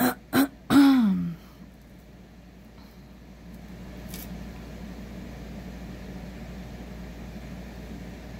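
A few short vocal sounds at the start, then steady low room hum with one faint light clink about four seconds in, from hands picking apart a tangled metal jewelry chain.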